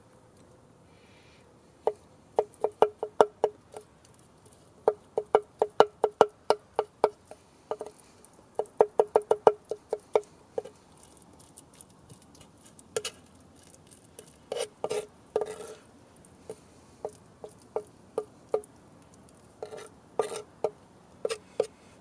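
Knife blade chopping and mashing avocado against a wooden slab cutting board. Runs of quick knocks, about five a second, each with a short wooden ring, come in three bursts over the first ten seconds, then give way to slower, scattered knocks.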